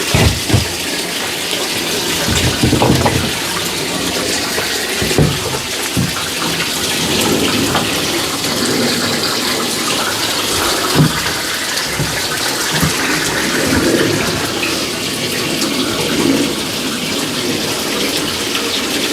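Tap water running steadily over refrigerator parts being washed, with a few short knocks as the parts are handled.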